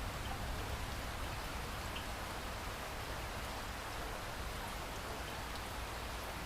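Steady light rain falling, with a few scattered drips and a low, steady rumble underneath.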